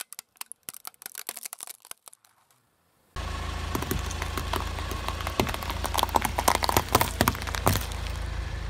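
A plastic toy water gun cracking and snapping under a car tyre. After a short quiet gap, a row of radishes is crushed under the tyre: a run of crunches and pops over a steady low engine rumble.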